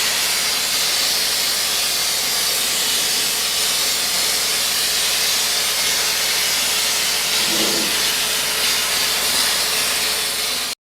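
Continuous steady hiss of a compressed-air spray gun applying rust-proofing coating, cutting off suddenly at the end.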